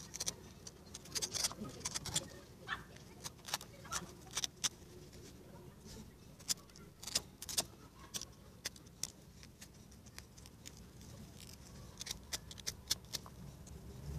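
Utility knife blade cutting and prying along the plastic seam of a fuel pump's coarse mesh strainer: a run of irregular sharp clicks and scratches.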